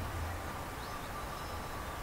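Faint, distant sheep bells ringing now and then over a steady low rumble.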